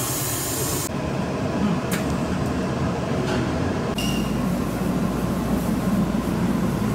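Tokyo Metro Marunouchi Line 2000 series subway train: the doors sliding shut about a second in, then the train's running noise, a steady low rumble that grows heavier about halfway through.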